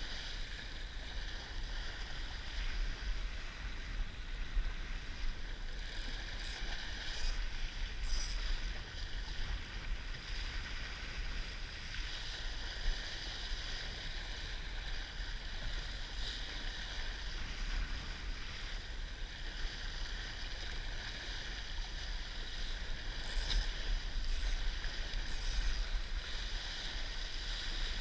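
Water rushing and splashing along the hull of a Laser dinghy sailing fast in strong wind, with a steady low rumble of wind on the microphone. Sharper splashes come a few times, several seconds in and again near the end.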